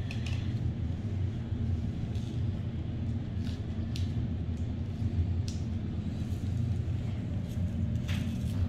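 Steady low room hum in a hospital room, with a few faint clicks and rustles as a nurse handles the tape and dressing of an IV on a child's arm.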